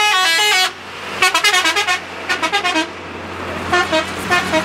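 Bus 'telolet' musical horn, a multi-tone horn playing quick runs of stepped notes in several bursts, over a steady engine hum.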